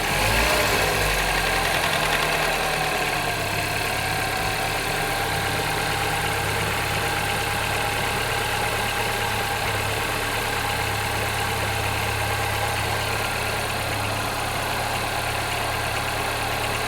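Citroën DS3 1.6 THP turbocharged petrol engine idling, with the rattle the owner is recording. It wavers slightly in the first few seconds, then runs steadily.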